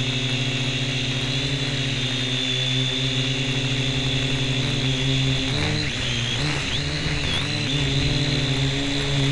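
Syma X1 quadcopter's small electric motors and propellers whining steadily, heard up close from the camera strapped on top of the drone. From about five and a half seconds in, the pitch wobbles up and down for a couple of seconds as the motor speeds change, then settles again.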